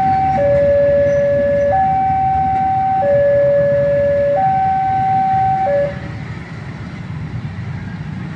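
Two-tone warning signal switching back and forth between a lower and a higher pitch, each held about a second and a half, stopping about six seconds in. Underneath runs a steady low rumble.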